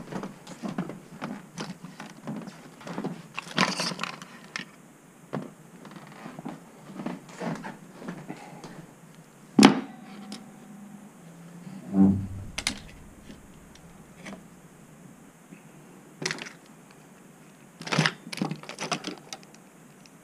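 Handling noise: scattered clicks, knocks and rustles of small objects picked up and set down on a table, with one sharp knock about ten seconds in and a dull thump about two seconds after it, over a low steady hum.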